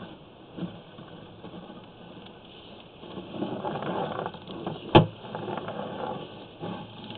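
Sewer inspection camera's push cable being fed down the line, a rumbling, sliding mechanical noise that grows louder past the middle, with one sharp knock about five seconds in.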